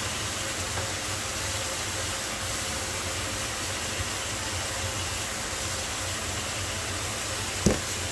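Salmon steaks frying in a nonstick pan, a steady sizzle. A single short knock near the end.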